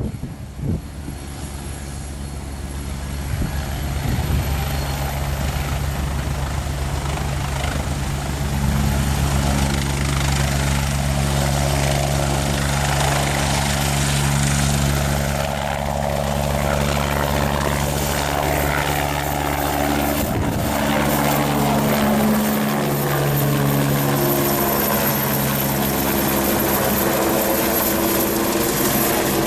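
Agusta A109E Power twin-turbine helicopter taxiing, lifting off and climbing away overhead. Its engines and rotor run steadily and grow louder over the first few seconds as power comes up, then stay loud.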